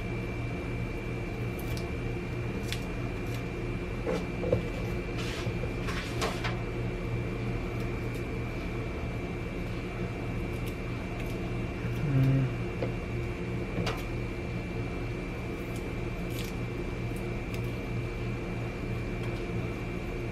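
Garlic cloves being peeled by hand, the papery skins giving scattered faint clicks and crackles, over a steady electrical hum with a thin high whine.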